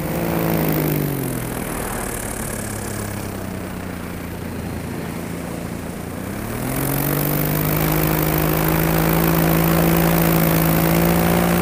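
Paramotor engine being throttled back, its pitch falling over the first second or so and running low for several seconds, then throttled up about six seconds in to a steady, higher drone. An even rush of wind and propeller noise grows with the power.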